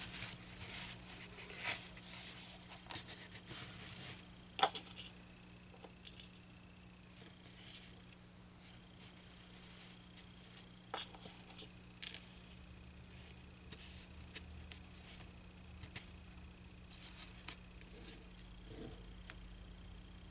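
Fabric being folded and handled over a styrofoam board, with straight pins pushed in to hold it: scattered soft rustles and small clicks, the loudest about four and a half seconds in.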